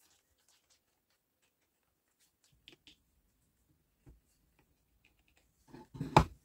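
Plastic housing parts of a Milwaukee M18 circular saw being handled during reassembly: a few faint clicks, then a short cluster of louder knocks and rattles near the end, the loudest just before it stops.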